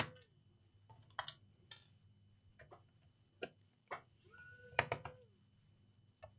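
Irregular sharp clicks and knocks of a laptop's plastic case and screws being handled as it is taken apart. A short pitched sound comes a little past the middle.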